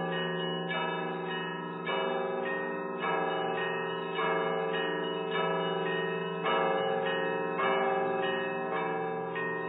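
Church bells in change ringing: a peal of bells struck one after another in a steady even rhythm, each new strike sounding over the ringing of the ones before.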